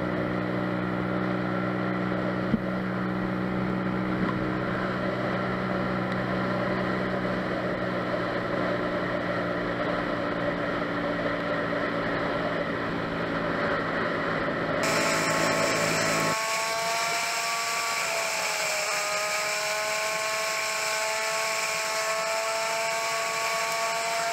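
A vehicle's engine running steadily, heard from an onboard camera as a constant drone with several pitches. About 16 s in, the sound changes abruptly to a higher-pitched drone whose pitch dips and rises slightly, consistent with the footage being sped up.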